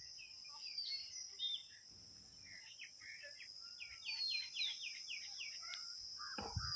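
Small birds chirping and twittering, with a quick run of repeated chirps midway, over a steady high insect drone.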